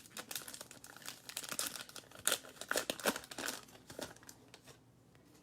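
Baseball card pack wrapper being torn open and crinkled, a run of quick crackles that dies away about four seconds in.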